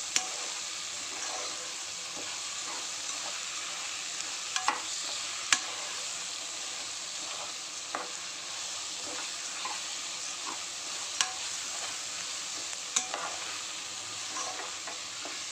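Whole green gram, onion and tomato sizzling in hot oil in an aluminium pressure cooker as they are stirred with a steel ladle. The sizzle is steady, broken by several sharp clinks of the ladle against the pot.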